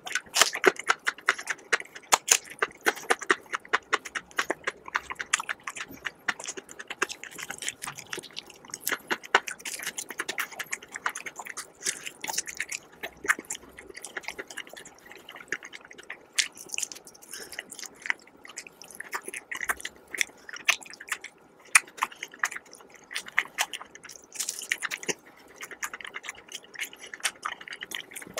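Close-miked chewing of crispy fried chicken: many sharp crunches of the batter coating mixed with wet mouth sounds, with no pause.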